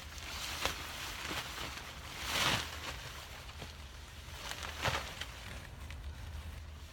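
Nylon rain fly of a backpacking tent rustling as it is handled and spread over the tent, with a louder swish about two and a half seconds in and another near five seconds.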